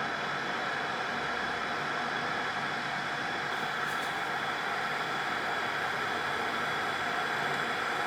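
Electric glass kettle heating a full load of water, a steady hiss from the element as the water warms.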